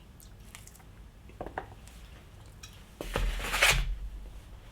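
Handling noise from food and its packaging: a few faint clicks, two short knocks about a second and a half in, then about a second of louder rustling and clatter with a low thump near three seconds in.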